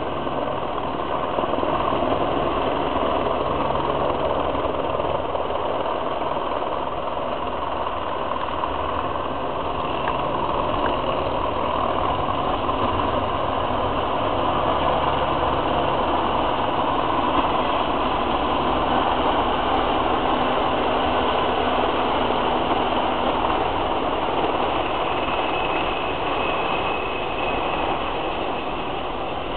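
Freight train passing over a steel trestle: diesel locomotives running and steel wheels rolling and grinding on the rails in a loud, steady rumble, with a faint high squeal near the end.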